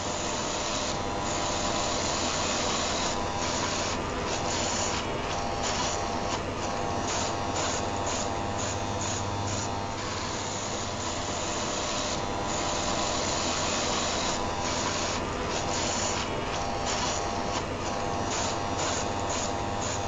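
A Philips ComfortCut rotary electric shaver running continuously, mixed with the steady whir and hum of an electric fan heater, used as white noise. The high hiss flickers, briefly dropping out in quick runs, over a constant low hum.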